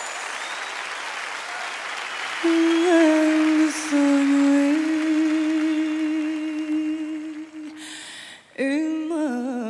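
Applause fading out on a live recording. About two and a half seconds in, a single voice begins humming long held notes with a slight waver. It breaks off briefly near the end, then hums on in a wavering tune.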